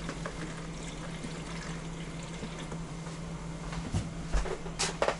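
Water running steadily from a tap into a vessel, over a low steady hum, followed by a few sharp clicks and knocks near the end.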